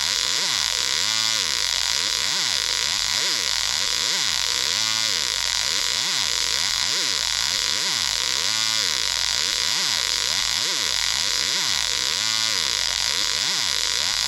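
Voice-changer 'Halloween' effect running on no voice, making electronic noise. A loud steady hiss has low tones sweeping up and down over and over, about once a second. A short buzzing pulse comes roughly every four seconds.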